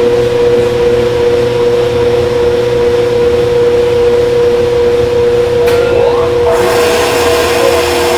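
Hydroelectric turbine-generator running and taking on load: a loud, steady machine whine with a strong high hum. A rushing hiss joins in about six and a half seconds in.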